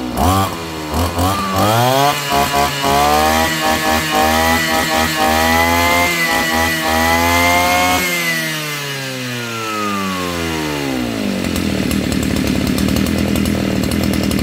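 Shindaiwa S35 brush cutter's 35cc two-stroke engine revved in a few quick blips, then held at high revs for about six seconds. About eight seconds in the throttle is released and the revs fall smoothly over about three seconds to a steady idle.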